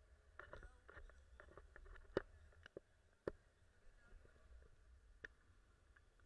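Near silence: a faint low wind rumble on the camera in flight, with a few sharp clicks, the loudest about two and three seconds in.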